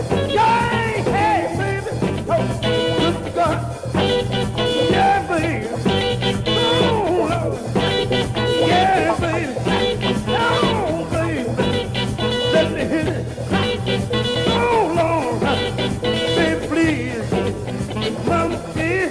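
Live electric blues band playing an instrumental passage: a lead line bending notes up and down over a steady bass and drum groove, with no singing.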